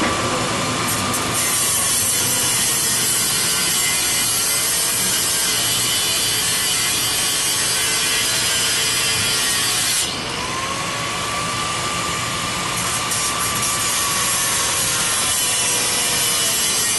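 Electric angle grinder cutting through a bicycle lock: a steady, harsh grinding with the motor's whine underneath. The cut eases for a moment about ten seconds in, then the disc bites again.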